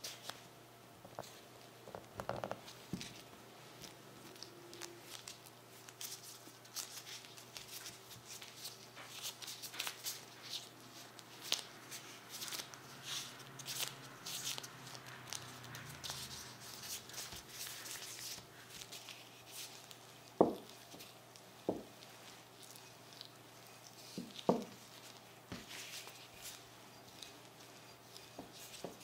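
Close-up handling sounds of dough prep: the crinkle and rustle of plastic food gloves, a plastic bench scraper cutting and tapping dough on a silicone mat, and dough pieces being pressed and shaped. There are a few sharper soft knocks in the second half.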